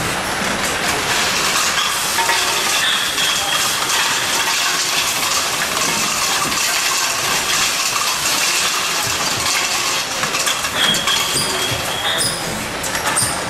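Jar filling and capping line running: a steady mechanical clatter full of small metallic clinks as metal jar lids rattle down the cap feeder chute.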